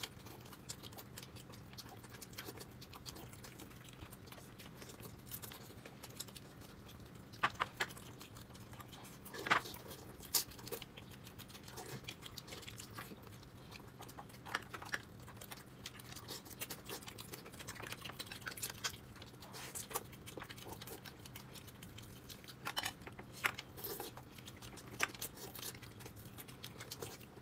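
Quiet eating sounds: scattered soft clicks and smacks of chewing, a few louder ones here and there, over a faint steady hum.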